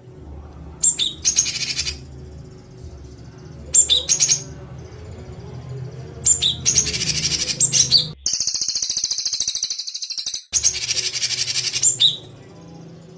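A songbird's harsh, rapid-fire chattering call, a 'tembakan' used as a training recording for cage birds, repeated in about five bursts of one to two seconds with short pauses. The fourth burst is a higher, buzzier trill. A low steady hum runs underneath.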